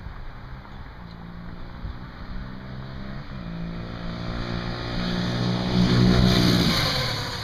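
Kawasaki KLX250SF supermoto's single-cylinder four-stroke engine accelerating past with its airbox snorkel removed. The note climbs, dips at a gear change about three seconds in, climbs again to its loudest, then drops in pitch as the bike goes by and fades.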